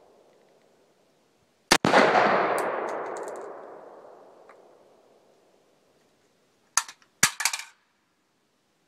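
A single shot from an Elite Arms AR-15 rifle in 5.56 mm about two seconds in, its echo rolling away and fading over several seconds. About five seconds later come a few quick, sharp metallic clacks.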